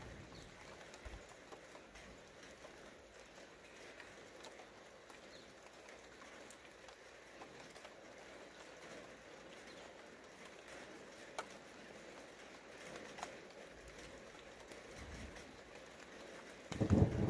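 Light rain pattering, with scattered drips ticking on leaves and ground. Near the end a loud, low roll of thunder begins and builds.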